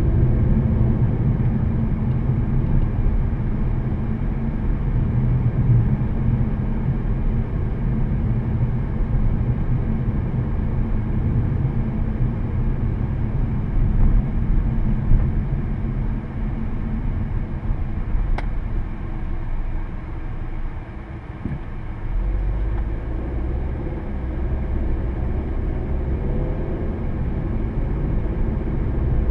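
Cabin noise of a 2014 Volkswagen Passat 1.8T, with its turbocharged four-cylinder engine cruising: a steady low rumble of engine and road noise, with one brief click about eighteen seconds in.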